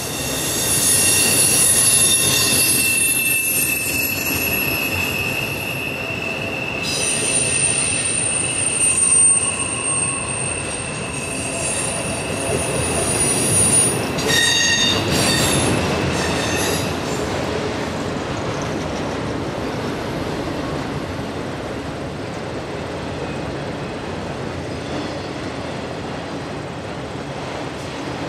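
Freight train of autorack cars rolling past on a curve, the wheel flanges squealing against the rail in several high, shifting tones for roughly the first seventeen seconds over the rumble of the cars. The squeal then dies away, leaving the steady rumble of the last cars going by.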